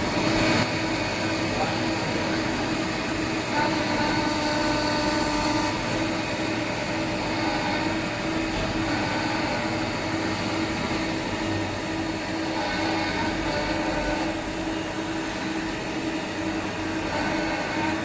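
CNC milling machine running: a steady mechanical hum with several held tones over a hiss.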